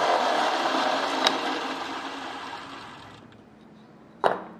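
Small vertical belt sander spinning down after being switched off, its whir fading away over about three seconds, with a sharp click about a second in. Near the end, a single sharp knock.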